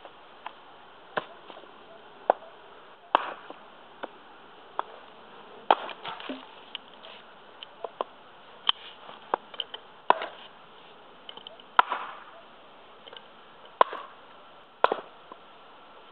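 A small Prandi Yankee axe with a 600 g head chopping into a knotty beech log on a chopping block. There are over a dozen sharp chops, irregularly spaced and about a second apart, some much harder than others.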